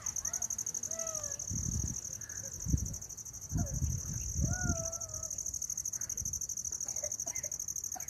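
Insects chirring steadily in a high, fast-pulsing drone, with a few faint gliding calls and several low thumps in the middle of the stretch.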